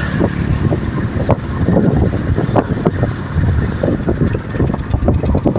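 Wind buffeting the microphone of a moving motorbike, with the bike's running and road noise underneath: a loud, uneven rumble with irregular thumps.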